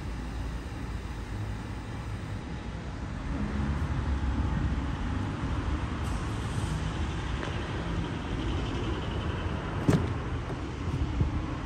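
Steady low background rumble, with one sharp click about ten seconds in as the Mitsubishi Triton's door handle is pulled and the door latch releases.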